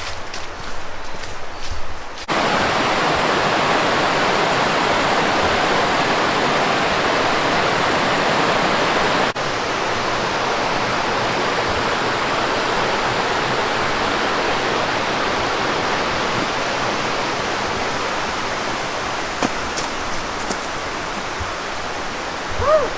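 Steady rushing water from mountain whitewater, starting suddenly about two seconds in and dropping a little in level around nine seconds in.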